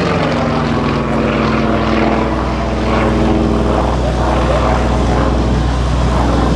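Piston engine and propeller of an aerobatic plane running at steady power, a continuous drone whose pitch wavers slightly.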